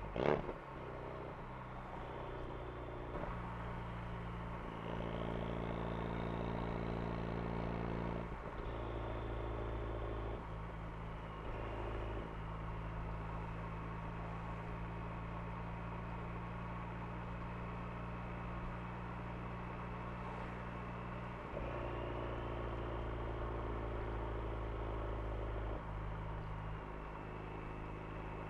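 Ford Focus RS engine and exhaust droning at a steady pitch while cruising, swelling and easing several times as the throttle comes on and off. A single sharp thump sounds just at the start.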